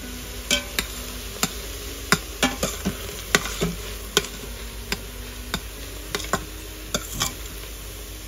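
A utensil knocking and scraping against a pan as ground beef browns, in irregular sharp clicks, over a steady sizzle.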